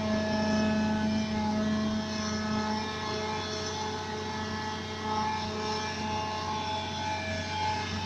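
Hydraulic excavator's diesel engine running steadily under load while digging, a constant drone with steady whining tones over it.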